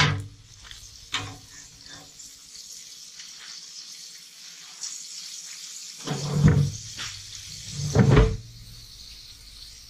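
Pieces of walleye frying in hot oil, a steady sizzle, with a few louder clatters or knocks about a second in and twice in the second half.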